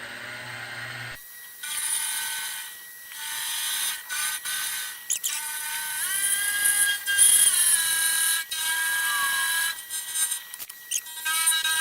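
Grizzly G0704 milling machine cutting a cast aluminum block, the end mill giving off a high, ringing squeal that starts and stops in stretches as each cut is taken.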